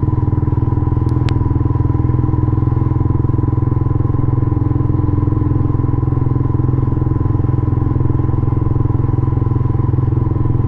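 Yamaha Sniper 150's single-cylinder four-stroke engine running at a steady, even throttle through an aftermarket MVR1 power pipe exhaust, heard from the rider's seat while cruising. Two short clicks sound about a second in.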